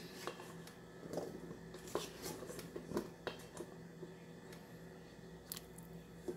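Faint, scattered clinks and taps of a metal spoon against a stainless steel bowl as potato pieces are scooped into a pot of broth, over a low steady hum.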